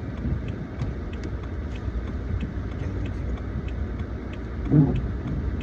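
Car cabin noise while driving: a steady low road-and-engine rumble with faint light ticking, and a brief voice sound near the end.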